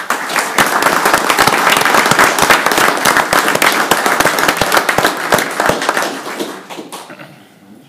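Audience applauding: many people clapping loudly for about six seconds, then dying away near the end.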